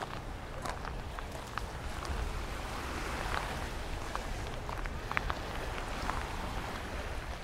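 Beach ambience: steady noise of waves washing on the shore, with a low rumble of wind on the microphone and scattered faint clicks.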